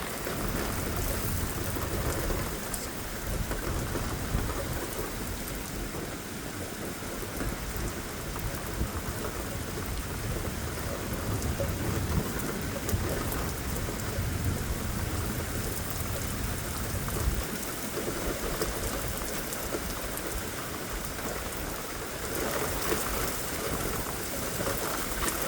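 Steady rain falling in a severe thunderstorm, with a low rumble that rises and falls underneath, from wind gusting and buffeting the microphone.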